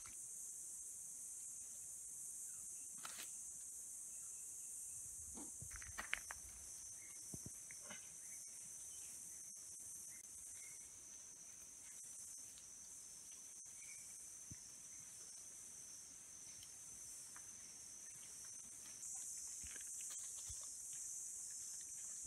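Steady high-pitched chorus of forest insects, with a few soft rustles and taps from the leaf litter.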